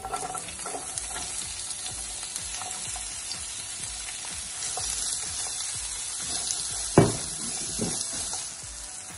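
Sliced onions and green capsicum sizzling in olive oil in a non-stick frying pan as they go in and are stirred with a silicone spatula. A single sharp knock about seven seconds in.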